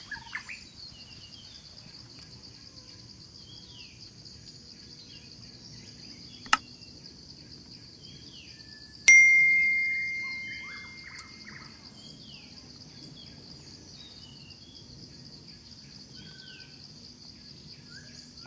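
Forest ambience: a steady high-pitched drone of insects with scattered short bird chirps. A sharp click comes about six and a half seconds in. About nine seconds in, a sudden bell-like ring starts and fades away over two to three seconds; it is the loudest sound.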